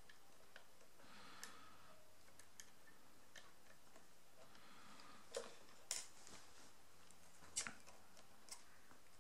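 Faint, scattered small clicks and ticks of lock-picking tools working inside an Ace padlock, with three sharper clicks in the second half.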